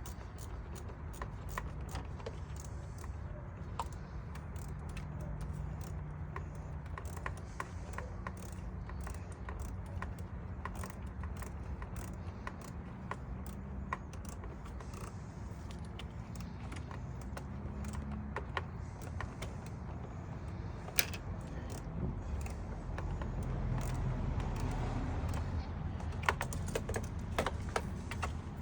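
Irregular light metallic clicks and taps of a hand tool tightening a worm-drive hose clamp on an air intake hose.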